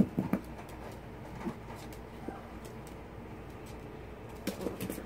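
A puppy's soft, short grunts and whines, scattered and coming more thickly near the end, after a single knock right at the start.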